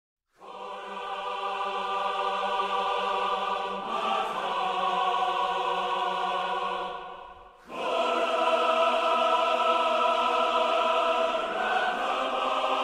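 Orchestral film-score music with a choir singing long sustained chords. It swells in after a brief silence, fades almost out about halfway, then comes back fuller and louder.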